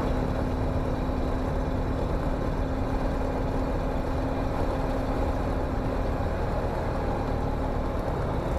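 Comco Ikarus C42C microlight's engine idling steadily just after a cold start on choke, heard from inside the cockpit.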